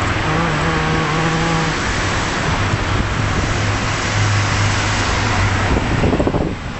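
Steady rushing street noise heard from a moving bicycle, with the low hum of a car running close alongside that fades out near the end.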